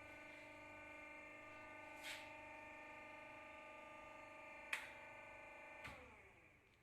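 Faint, steady machine hum with several even pitched tones, broken by three brief hissy clicks, then dying away near the end.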